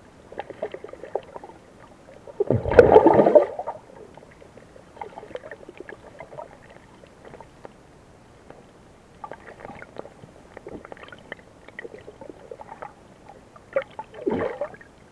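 Muffled sound of shallow seawater heard through an underwater camera: faint scattered clicks and ticks, with a loud low burst of water noise about three seconds in and a shorter one near the end.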